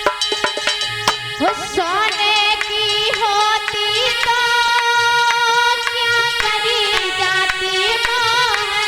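Indian devotional bhajan music: a melody line slides up about a second in, then holds long wavering notes over a steady hand-drum rhythm.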